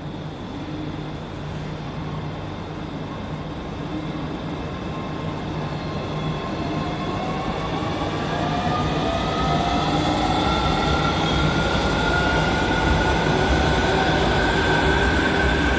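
JR Kyushu 815 series electric multiple unit pulling away, its motor whine rising in pitch as it gains speed over a steady hum and wheel rumble, growing louder throughout.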